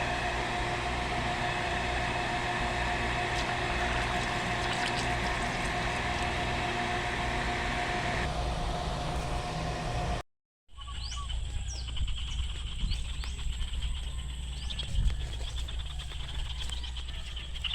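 Newly installed electric water pump running with a steady hum and a few fixed tones. A higher hiss within it stops about eight seconds in. After a short break, a pulsing high trill and scattered clicks sound over a low rumble.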